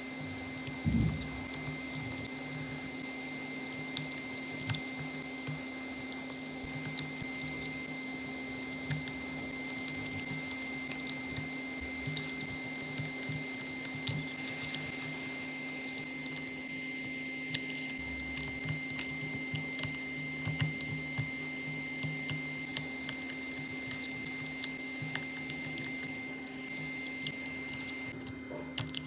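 A steady machine hum with a high whine and a lower tone under it, with scattered light clicks and taps from small tools at work, and a low thump about a second in.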